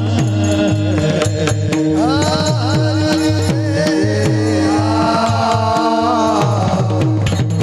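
Devotional kirtan singing: a sung voice with long ornamented glides over a steady held drone tone and regular hand-drum strokes.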